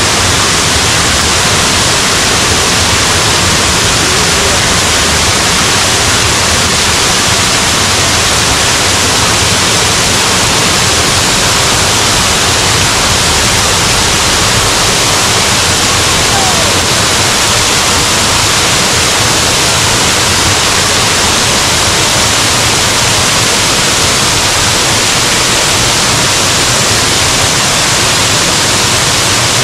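Waterfall: water falling and rushing in a loud, steady noise.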